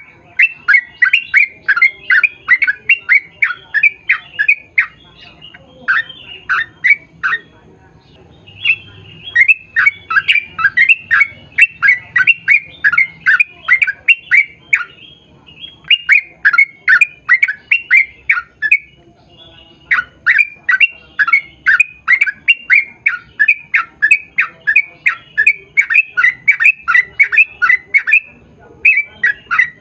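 Trucukan (yellow-vented bulbul) singing in long, fast runs of short chirping notes, about three to four a second, broken by brief pauses of about a second.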